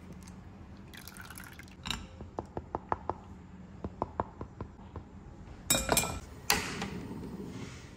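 Crepe batter strained through a stainless steel mesh sieve into a glass bowl: light ticks as a spatula works the batter through the mesh, then a few loud clinks of metal on glass, followed by a short scraping rush.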